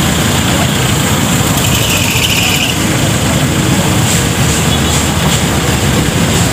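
Steady low rumble of classic car engines moving off at walking pace, the nearest an open military-style jeep pulling slowly past.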